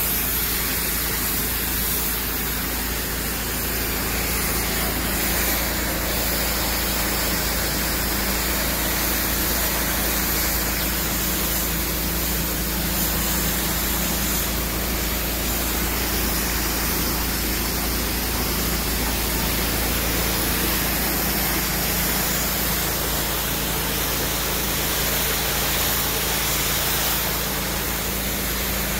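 Pressure washer's jet of water spraying and splashing on rock: a steady hiss, with a steady low hum underneath.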